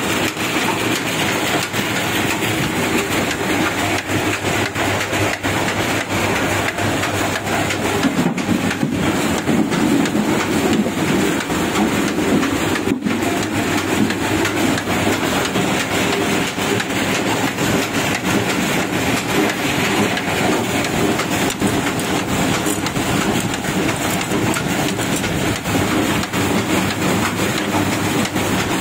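Sardar Engineering oil expeller (screw press) running steadily while pressing oilseed: a continuous mechanical rumble with a dense, rapid rattle of small knocks and one sharper knock about halfway through.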